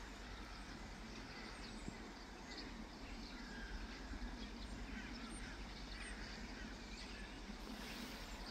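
A flock of gulls calling in the distance: many short calls overlapping, over a steady low background noise.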